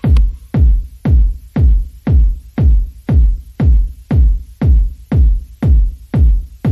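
Background electronic music with a steady, heavy beat, about two beats a second.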